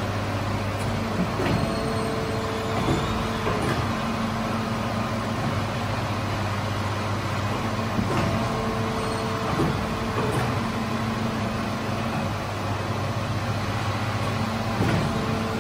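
Automatic bakery dough machine running with a steady low motor hum and rattle. A higher whine comes and goes a few times, and there are occasional short knocks.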